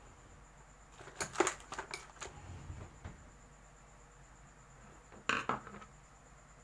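Small hard objects clinking and clattering as they are handled: a quick run of clicks about a second in, and another short clatter a little past five seconds.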